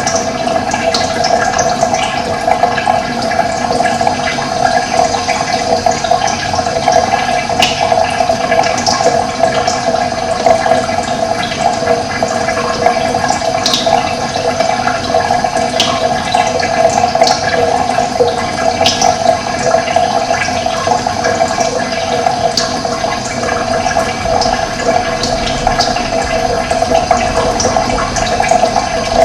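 Running water flowing steadily: a continuous, even rushing.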